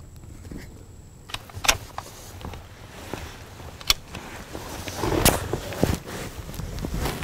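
Sharp metallic clicks and rustling from a scoped .22 Magnum rifle being handled and brought to the shoulder, several separate clicks spread over a few seconds.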